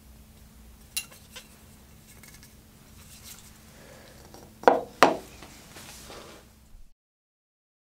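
A hand-finished Nessmuk knife with a steel blade and oak handle being set down on a wooden workbench: a couple of light clicks, then two sharp knocks with a brief ring close together, over a faint steady hum. The sound then cuts off.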